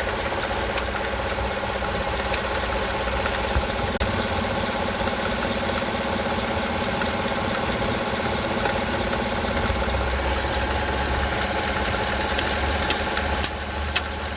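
GM Gen 5 LT V8 engine idling, with a few sharp clicks now and then over the steady running. The noise comes only at low revs and jerks the engine; the owner guesses a failing timing chain or tensioner.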